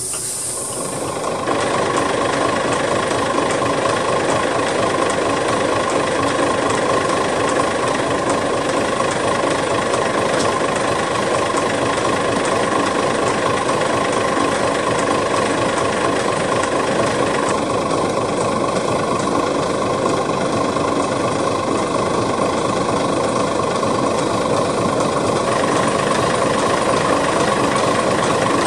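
Diesel engine of a narrow-gauge locomotive idling steadily. A hiss of steam dies away about a second in.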